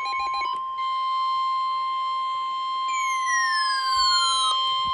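NOAA Weather Radio warning alarm tone, a steady single pitch near 1 kHz, the alert that comes before a National Weather Service warning broadcast. About three seconds in, a few falling tones slide down over it for a second and a half.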